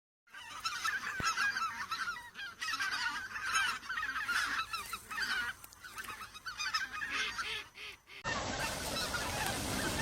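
A flock of wild geese honking, many short calls overlapping densely. Just after 8 seconds the recording cuts to another take with a steady noisy background under the calls.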